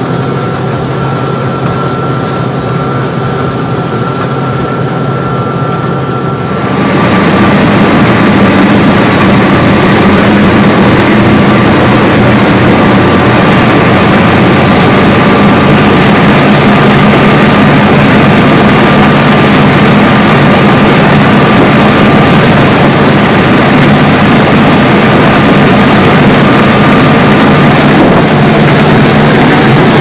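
Twin MTU diesel engines driving Hamilton waterjets, running at high speed, with wind and the wake rushing. About six and a half seconds in the sound suddenly gets louder and fuller, then holds steady.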